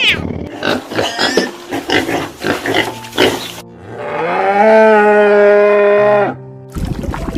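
Farm animal calls over background music: a run of short, rough calls, then one long call about two seconds long that rises in pitch and then holds steady.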